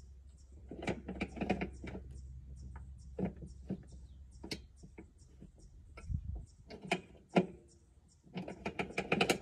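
Rattling and clicking of a lawn mower's parts as it is handled, in several short bursts.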